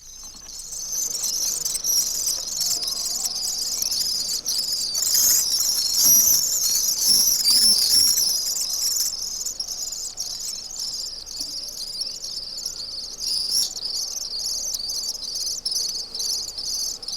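Young common swifts calling persistently from their nest in a roof space: a dense, continuous, high-pitched chittering that swells and fades.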